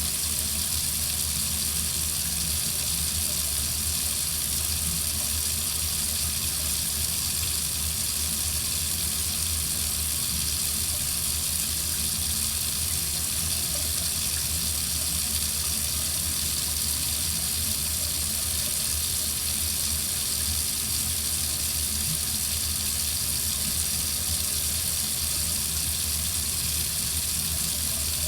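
Water running steadily from a faucet into a sink: an even, unbroken hiss with no drips or breaks.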